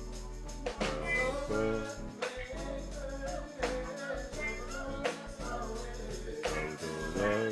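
Live gospel music: voices singing over a band with a steady drum-kit beat and bass.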